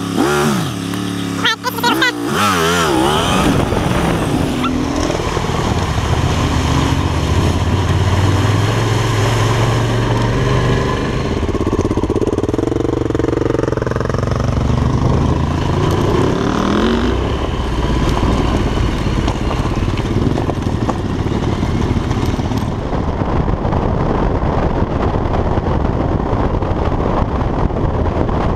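Yamaha Ténéré 700's parallel-twin engine heard onboard while riding, its pitch rising and falling as the rider accelerates and changes gear, over a steady rush of noise.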